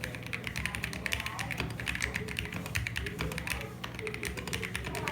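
Fast typing on an EverGlide SK68 custom mechanical keyboard with lubed Gateron Yellow linear switches, a polycarbonate plate and PBT keycaps: a dense, even run of key clacks, many strokes a second.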